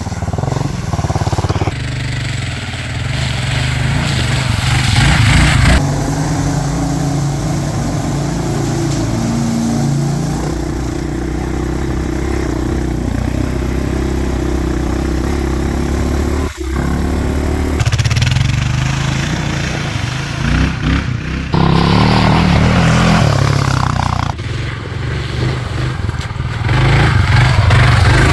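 An off-road vehicle's engine running under changing load, its pitch rising and falling, with road and wind rumble. The sound changes abruptly several times, as if between separate clips.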